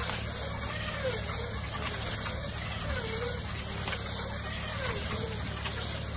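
Tractor engine running under a rear-mounted twin-pack bale wrapper whose arm is going round, wrapping film around bales. The sound swells and falls about once a second, with a wavering whine rising and dipping on each turn over a steady low hum and hiss.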